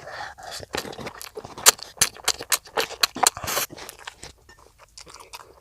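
Close-miked eating sounds: chewing with a dense run of sharp clicks and crackles through the middle, thinning and going quieter near the end.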